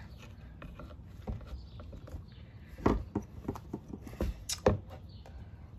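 Scattered clicks and knocks of hard plastic and metal parts being handled and shifted: a corded impact wrench's motor and trigger assembly being worked out of its plastic housing. The sharpest knocks fall about three seconds in and twice more near the four-and-a-half-second mark.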